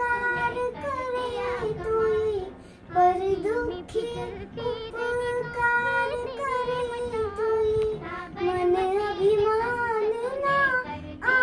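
A child singing solo, one voice holding long notes of a slow melody, with a brief pause for breath a few seconds in.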